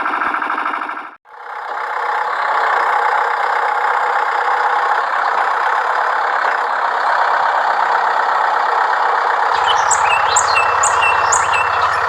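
Small diesel engine running steadily, driving a high-pressure water pump. The sound cuts out briefly about a second in, and music with a low bass and chirpy effects comes in near the end.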